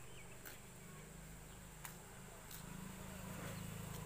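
A flying insect buzzing near the microphone: a steady low drone that wavers slightly in pitch and grows a little stronger in the second half, with a few faint ticks.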